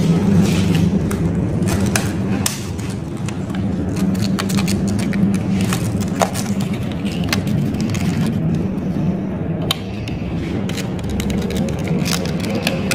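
Enamelled copper winding wire rustling, scraping and clicking as a coil is pressed by hand into the paper-insulated slots of an electric motor stator, over a steady low hum.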